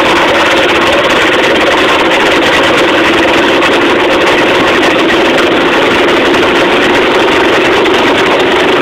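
Minibike's small engine running steadily at riding speed.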